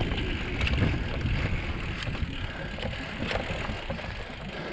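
Giant Trance mountain bike riding fast down a dirt forest trail: a steady rumble of tyres over soil and roots, with scattered sharp rattling clicks from the bike.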